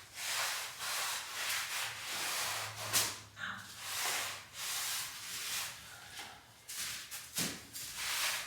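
A cloth wiping excess pre-stain conditioner off wooden boards, making repeated rubbing swishes in an uneven rhythm.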